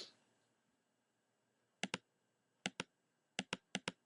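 Computer mouse clicking: four quick pairs of sharp clicks from about two seconds in.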